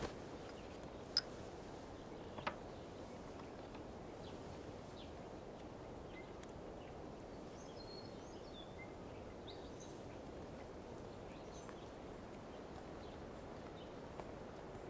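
Faint steady outdoor ambience, a low even hiss, with two small clicks in the first few seconds and a few faint high chirps in the middle.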